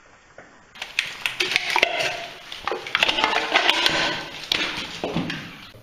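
Clattering and scraping of rocks and debris: a dense run of sharp knocks starting about a second in, easing off near the end.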